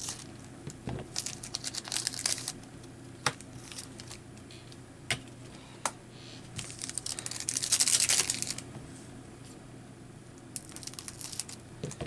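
Foil trading-card booster pack wrappers crinkling as they are handled and cut open with scissors, with a few sharp clicks and a louder stretch of crinkling about eight seconds in.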